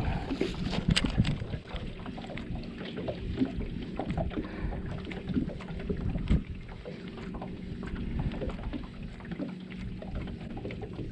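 Scattered knocks, clicks and water sounds from a fishing kayak, over a low steady hum.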